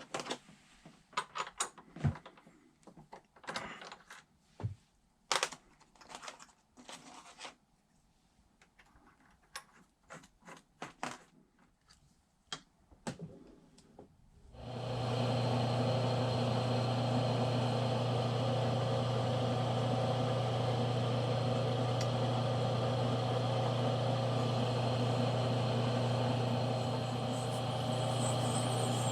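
Scattered clicks and knocks of metal tooling being handled, then about halfway through the Smithy combination lathe/milling machine's motor starts and runs steadily with a low hum.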